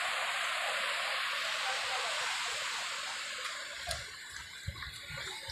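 Mountain stream rushing over rocks, a steady rush that fades away about three and a half seconds in. A few low thumps follow, footsteps on a dirt path.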